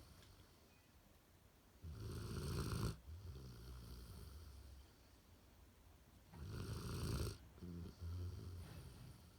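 A standard poodle snoring in its sleep: two louder snores about four and a half seconds apart, each lasting about a second, each followed by a softer breath.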